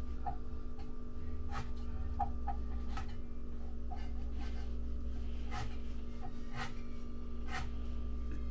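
Kitchen utensils clicking and tapping lightly, at uneven gaps of about half a second to a second, over a steady hum.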